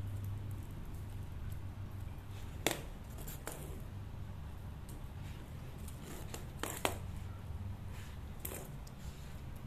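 A cat playing with a new toy: a few scattered sharp clicks and rattles, about four or five in all, over a steady low hum.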